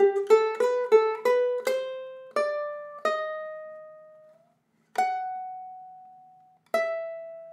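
Ukulele played slowly: a quick run of about eight plucked notes climbing in pitch, then a brief pause and two single notes each left to ring out.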